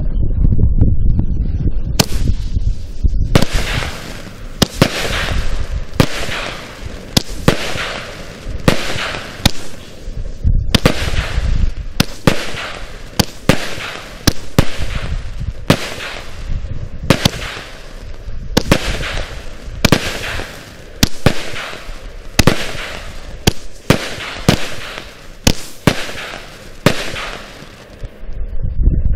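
Blackstone consumer fireworks cake firing shot after shot, a sharp bang about every second, each followed by the crackle of the bursting star shells. It opens with a low rumble in the first couple of seconds.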